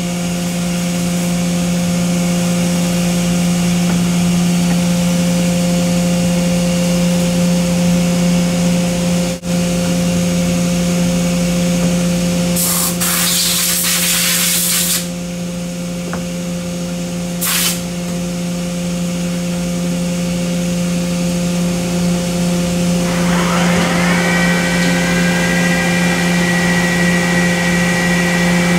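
CNC milling machine cutting the radius face of a putter under coolant spray: a steady machine whine and hum with a hiss of coolant. About halfway through come two short, loud hissing bursts, and near the end a tone glides up and holds at a higher whine.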